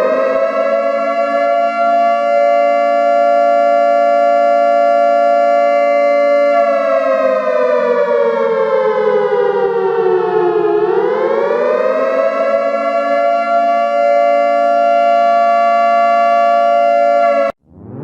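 Civil-defence air-raid siren sounding a nuclear attack alarm, two close notes together with many overtones. It holds a steady pitch, slides slowly down for a few seconds and swoops back up, holds again, then cuts off abruptly near the end before starting to wind up once more.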